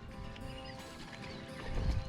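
Background music with sustained held tones; a low rumble rises near the end.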